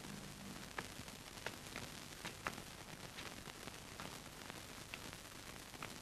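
Faint steady hiss with a low hum and scattered soft clicks, the background noise of an old film soundtrack.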